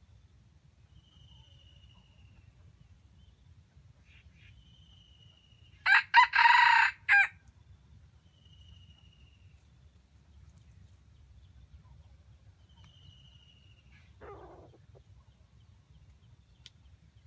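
A red junglefowl rooster crows once, a short, loud crow about a second long, about six seconds in. Faint thin high whistled notes repeat every few seconds in the background, and a brief lower call comes near the end.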